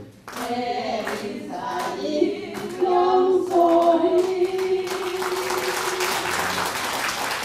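A small group of singers, mostly women, sings the closing phrase of a song, ending on a long held note. About five seconds in, applause breaks out.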